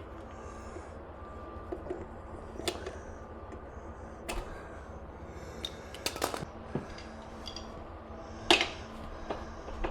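Hand tools clicking and tapping against metal on a motorcycle's rear axle and wheel: several separate sharp clicks a second or more apart, the loudest near the end, over a steady low hum.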